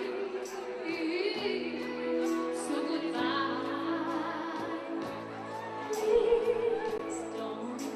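Woman singing live into a microphone over a live band, holding wavering notes, with scattered cymbal hits.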